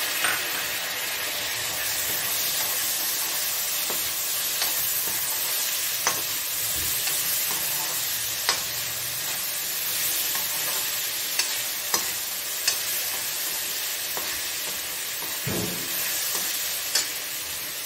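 Chopped tomatoes sizzling as they fry with onions and spices in a metal kadhai, while a long perforated metal spoon stirs them, scraping and giving sharp clicks against the pan now and then.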